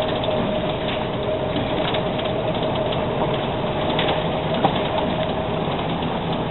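Electric rack-railway train of the Schynige Platte line running along its rack track, heard from an open-sided carriage: a steady rolling rumble with a steady whine, and a few sharp clicks from the wheels and track.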